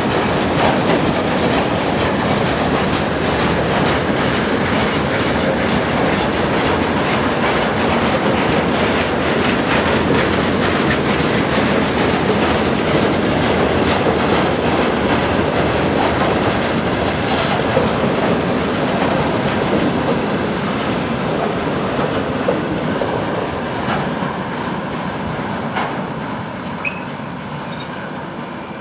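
Freight train of rail tank cars rolling past: a steady rumble of steel wheels on rails with rapid clickety-clack over the rail joints, fading over the last third as the train draws away.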